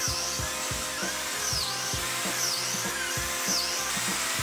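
Background music with a steady beat, over the steady running of a Ryobi biscuit jointer held against the edge of a wooden table-top board.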